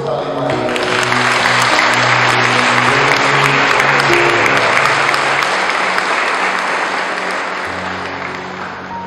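A crowd applauding over soft background music. The clapping builds over the first second or so, holds, then fades away towards the end.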